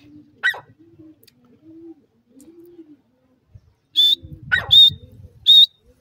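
Grey francolins calling: soft low notes through the first half, a sharp high call about half a second in, then three loud, high-pitched notes in the last two seconds.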